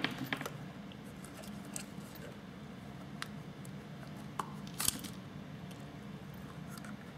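Plastic shell of a Denver SHC-150 smart home camera handled and pried apart: scattered light clicks and rubbing of plastic, the sharpest click about five seconds in, over a faint steady hum.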